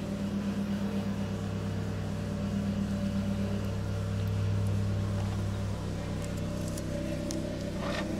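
Steady low motor hum with several even overtones, swelling slightly around the middle, with a few faint light clicks near the end.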